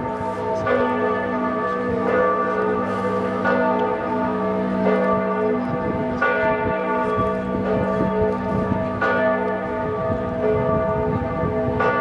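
Church bells of Florence's Duomo ringing the noon peal, heard close by from high on the cathedral. Several bells sound together, with fresh strokes every second or two over a lasting hum.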